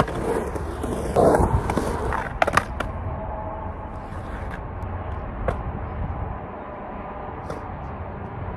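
Skateboard on 92A wheels dropping in and rolling over rough concrete transition: a loud wheel rumble for about two and a half seconds, with sharp knocks of the board about a second in and again around two and a half seconds in. Afterwards steady highway traffic hum with a few light clicks.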